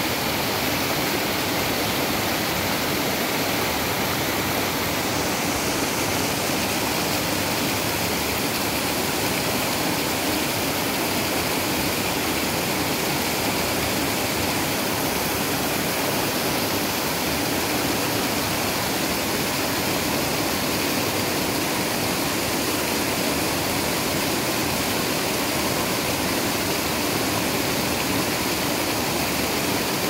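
Steady rushing of flowing water, even and unchanging.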